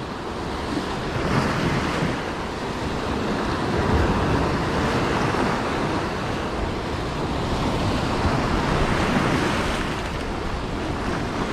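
Heavy surf breaking and washing over a boulder shore in a big swell, a steady rush that swells and eases, with wind buffeting the microphone.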